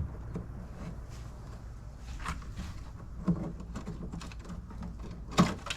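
Scattered light clicks and scrapes of dried mud-dauber nests and debris being picked out by hand, with three louder short knocks about two, three and five seconds in.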